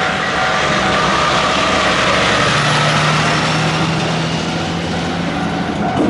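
Diesel engine of a heavy double-trailer truck, running steadily and loudly as it passes close by with heavy road noise.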